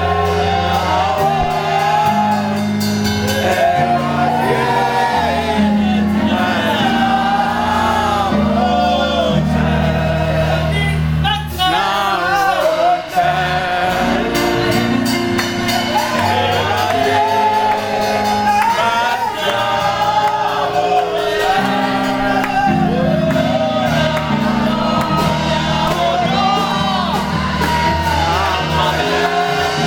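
Live gospel worship music: voices singing over sustained instrumental chords, with the sound carried by a large hall. The music thins out briefly about halfway through.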